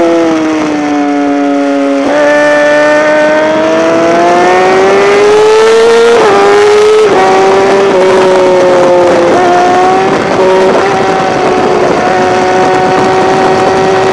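Yamaha R6 inline-four sport bike engine heard from the bike itself at track speed, with wind noise: revs fall for the first couple of seconds, jump with a gear change about two seconds in, climb under acceleration, and after another gear change about six to seven seconds in hold nearly steady.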